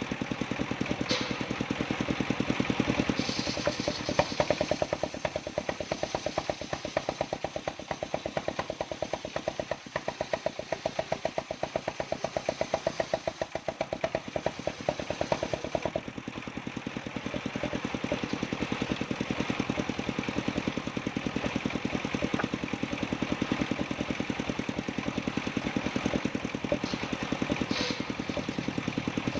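Engine of a portable circular sawmill running steadily with a fast, even pulse of firing strokes, with a few brief clatters.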